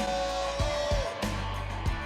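Background music: a rock track with electric guitar holding a bent note over a steady drum beat.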